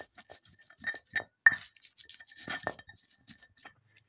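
Stone pestle grinding and knocking in a stone mortar (ulekan and cobek), crushing chillies, shallots and garlic into a paste: irregular clacks and scrapes of stone on stone, the loudest about one and a half seconds in.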